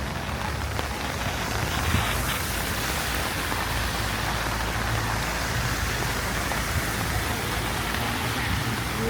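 Heavy rain falling steadily, a continuous even hiss of rain on the ground.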